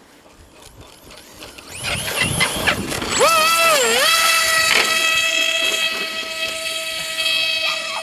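Electric motor of an RC model whining up in pitch about two seconds in. It dips briefly, then holds a steady high whine at constant throttle.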